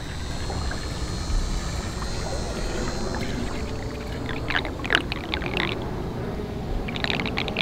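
Floodwater draining down a sewer drain: a steady low rush, with a few brief splashy bursts about halfway through and again near the end.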